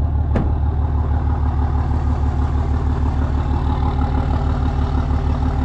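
Cummins inline-six turbodiesel of a Dodge Ram 3500 dually truck running steadily at low speed with an even pulsing beat while reversing. A single sharp click sounds about half a second in.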